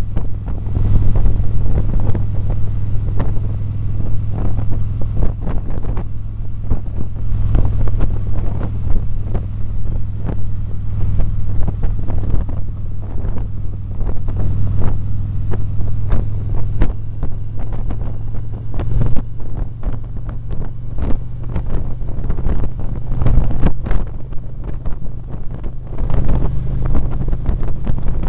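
Heavy wind buffeting on the microphone of a moving motorcycle, over the steady low drone of its engine at cruising speed.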